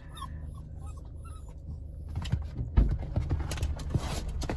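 A dog whimpering faintly inside a parked car, then the car's door unlatching and swinging open about two seconds in with a thump, letting in outdoor noise and the rustle and scrabble of the dog moving on the seat.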